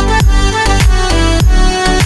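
Background music with a steady beat: a deep kick drum about twice a second under held melody notes.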